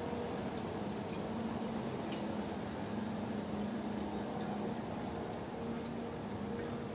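Diesel fuel pouring from a glass jar through a plastic funnel into a camp stove's fuel tank, a steady trickle, over a steady low hum.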